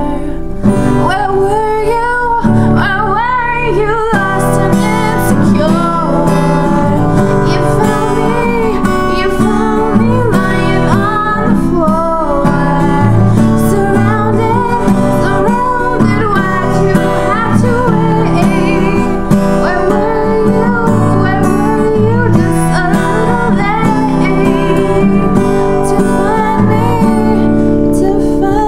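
Strummed steel-string acoustic guitar with a woman singing over it.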